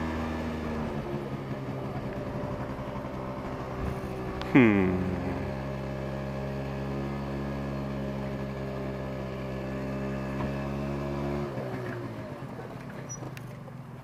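Honda scooter's small engine running steadily at low speed, then switched off about three-quarters of the way through. About a third of the way in, a brief loud sound falls quickly in pitch.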